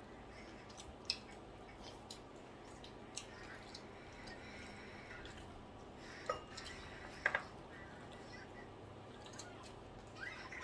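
Quiet eating sounds from people eating roast meat and potatoes with their hands: soft chewing and mouth smacks, with a few sharp clicks about a second in and again around six and seven seconds, over a faint low room hum.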